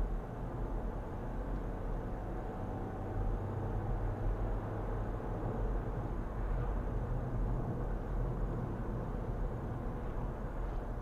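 Steady road and engine noise inside a moving car, picked up by a dashcam, at around 40 to 50 mph.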